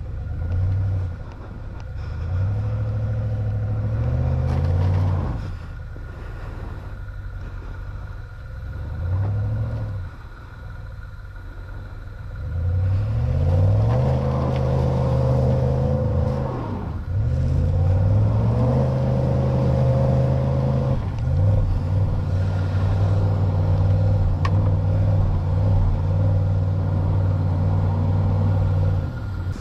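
Jeep Wrangler engine revving under load as it pushes through deep snow: several surges that rise and fall, then held at high revs for most of the second half before dropping off at the end.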